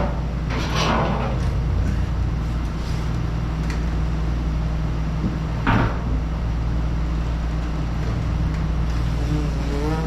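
A steady low hum runs throughout, with two brief clattering handling noises: one about a second in and one near six seconds.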